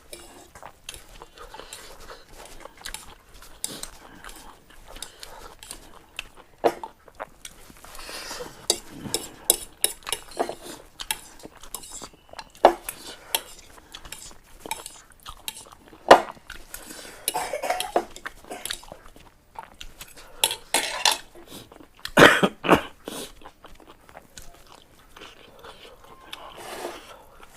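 Eating sounds from a bowl of very spicy ramen noodles: utensils clicking against the bowl, slurping and chewing, with a few louder sharp clinks and short noisy bursts scattered throughout.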